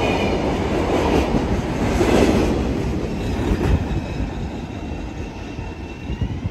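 Freight cars rolling past at close range, their wheels rumbling on the rails, with a faint high wheel squeal near the start. The sound fades over the last couple of seconds as the end of the train goes by.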